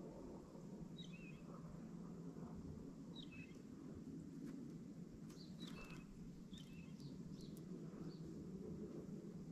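Small songbirds giving short, high chirps over a faint, steady low rumble. About eight chirps come scattered through, several falling in pitch, with a cluster in the second half.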